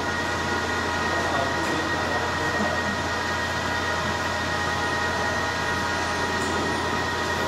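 Steady hum and whine of machine-shop machinery running, with several steady tones and no cutting going on.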